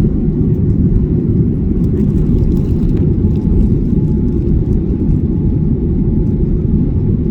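Boeing 787-9 airliner heard from inside the cabin during takeoff: a loud, steady, deep rumble of engines and airframe, with a faint steady tone above it.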